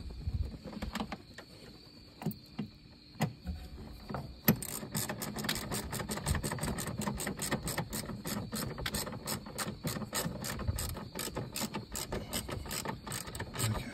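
Hand ratchet wrench clicking as nuts are run down and tightened: a few scattered clicks at first, then quick, steady runs of clicks from about four seconds in.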